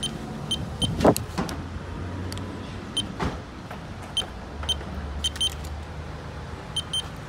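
Car wash code keypad giving a short high beep with each key pressed: a dozen or so beeps, several in quick pairs. A car engine idles with a low steady hum underneath, and there is one sharp knock about a second in.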